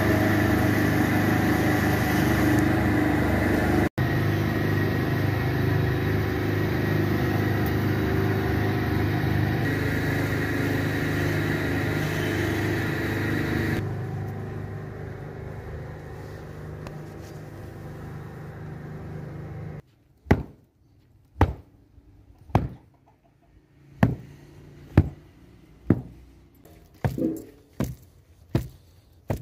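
Electric wool-carding machine running steadily as raw wool is fed in to be fluffed. After a break, a wooden stick beats a wool-filled mattress about once a second, the blows coming faster near the end, to spread the wool evenly inside.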